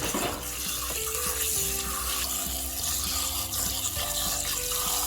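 Water running steadily while herb leaves are washed, over background music with long held notes.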